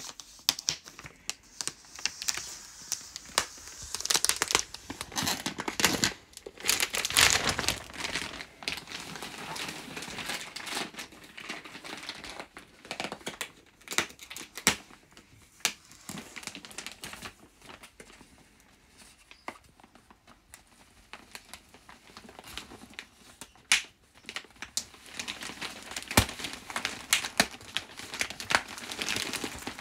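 Clear plastic film wrapped around a rolled mattress crinkling and tearing as it is slit open with a small safety cutter and pulled apart by hand. The rustles come in irregular spells with sharp crackles, and there is a quieter stretch past the middle.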